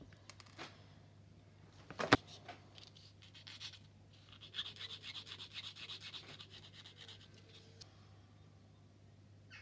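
Small plastic kit part snipped off its sprue with one sharp click about two seconds in, then a sanding stick rubbed quickly back and forth over the part to clean up the cut.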